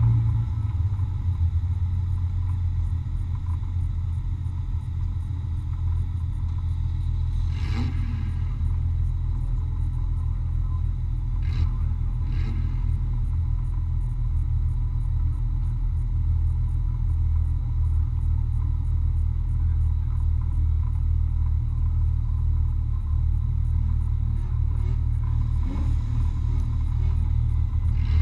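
Off-road race vehicle driving over rough ground, heard from on board: a steady, deep rumble of engine and chassis, with a few brief knocks about a third of the way in.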